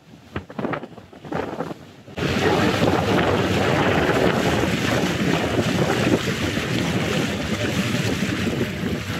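Wind buffeting the microphone aboard a boat at sea, over the rush of the water; it comes in suddenly about two seconds in after a quieter start and then holds steady.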